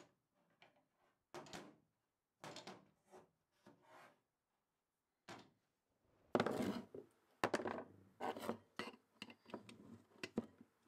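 Vintage hand ratchets being handled on a wooden workbench: short rubbing and knocking noises, then from about halfway a louder stretch of metal-on-wood rubbing with a few sharp clicks.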